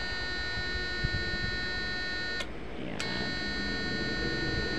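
Fish shocker inverter running with a steady high-pitched electronic whine and buzz. It cuts out for about half a second midway, then resumes.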